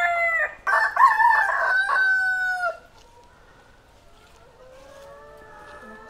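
A rooster crowing loudly, its call held and then falling away at the end, about two and a half seconds in. A fainter, drawn-out crow follows from about four seconds in.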